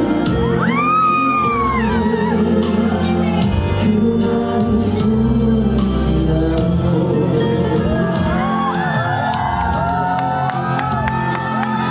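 Live band music with a singer performing a song, drums and sustained chords underneath, while audience members whoop and shout over it, most busily in the last few seconds.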